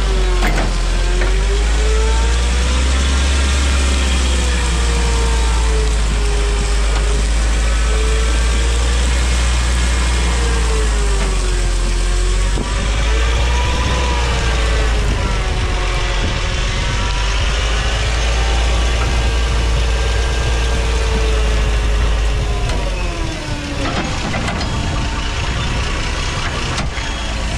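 TCM forklift engine running, with a heavy low rumble and a pitch that rises and falls again and again as the forklift moves the trailer. The rumble eases about three-quarters of the way through.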